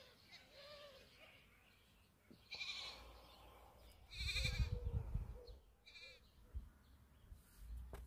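Farm livestock bleating: several short, wavering calls, one after another, the loudest about halfway through with a low rumble under it.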